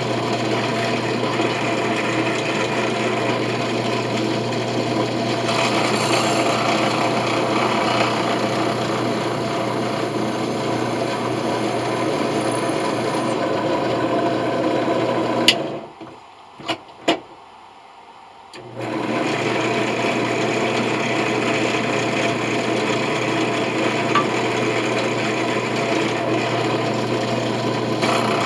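Electric drill running steadily, its bit grinding into a brass coin. About halfway it cuts off sharply, a couple of clicks sound in the short lull, and a few seconds later it starts again and runs on.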